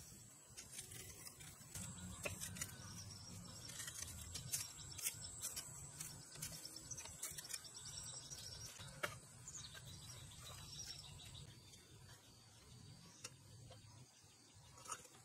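Long-handled rake dragging through cut grass: soft, irregular scrapes and rustles with each stroke. A thin, steady, high insect drone runs behind it and fades out about three-quarters of the way through.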